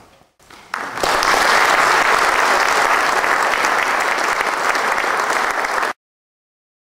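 Audience applauding, the clapping rising quickly about a second in to a steady dense patter, then cut off abruptly about a second before the end.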